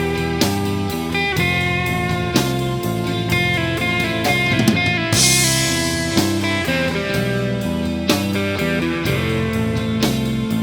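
Instrumental blues-rock break: electric guitar playing over bass and drum kit, with a cymbal crash about five seconds in.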